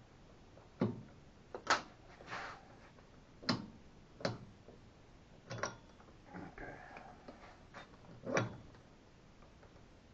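Scattered clicks and knocks of transmission parts and tools being handled on a bench, about eight in all, with a couple of short scraping sounds between them.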